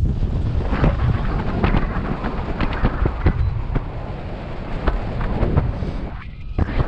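Wind rushing over the camera microphone of a paraglider in flight: a loud low rumble with irregular crackling gusts, easing briefly near the end.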